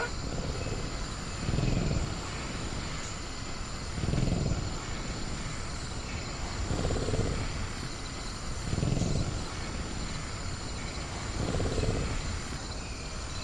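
Sound-designed velociraptor giving low, soft rumbling vocalisations, five swells a couple of seconds apart, over a steady night-jungle bed with a constant high insect tone.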